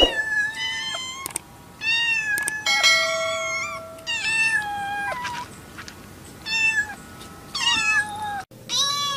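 Kittens meowing over and over, about seven high-pitched calls, each under a second, some of them overlapping.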